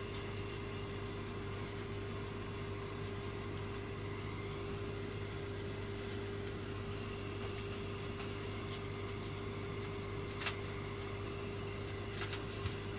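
Steady machine hum, one even mid-pitched tone over a low drone, with a few faint clicks near the end.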